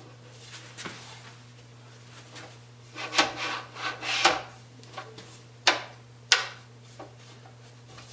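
Giffin Grip disc being pressed, shifted and turned on a pottery wheel head: a run of scraping rubs around the middle, then two sharp knocks about half a second apart, over a low steady hum.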